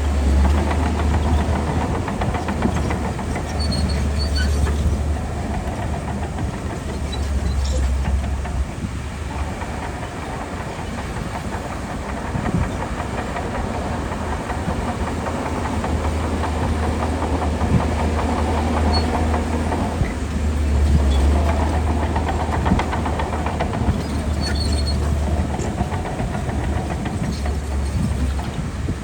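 Shantui DH17C2 crawler bulldozer at work: its diesel engine drones under changing load, swelling and easing several times, over a steady clatter of its steel tracks.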